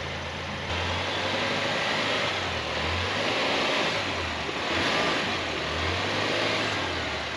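Ford Ranger pickup engine running at low revs under light throttle as the truck creeps up onto wooden ramps in four-wheel drive. The engine note rises about a second in, then swells and eases several times, over a steady rushing hiss.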